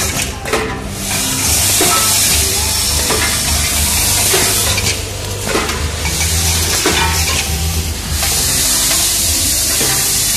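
Vibratory bowl feeders on a parts-packing machine running: a steady low hum under a dense, hissing rattle of many small parts shaking against the steel bowls.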